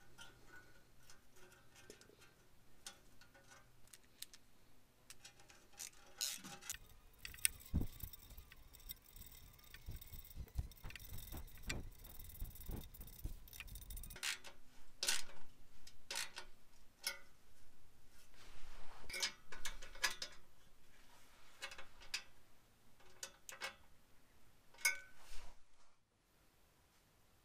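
Irregular metallic clicks and taps of a hand tool working a worm-drive hose clamp tight around the exhaust pipe joint. A rougher stretch of scraping and handling noise comes about a third of the way in.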